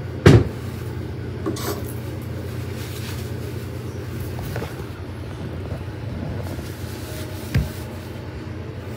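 A sharp knock about a quarter second in, then a couple of softer bumps, from handling things at a sink counter, over a steady low hum.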